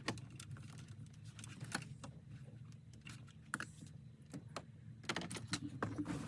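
Irregular small clicks and taps of plastic dash trim and a microphone cable being pushed and tucked behind the panels, over a low steady hum.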